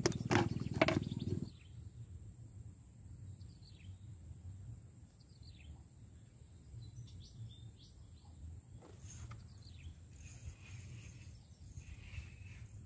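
A loud, low, rapidly knocking sound stops suddenly about a second and a half in. After it, birds chirp in short scattered calls over a faint low hum.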